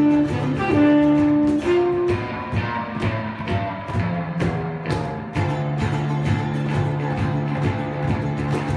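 Small live rock band playing an instrumental. A saxophone holds long notes over electric bass, guitars and cajon beats, then drops out about two seconds in, leaving the bass, guitars and cajon.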